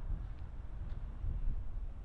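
Wind buffeting the microphone: an uneven, gusty low rumble.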